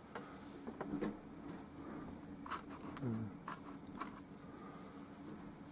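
Bristle brush dabbing and scraping oil paint onto a canvas, a scatter of soft scratches and light taps, over a steady low hum.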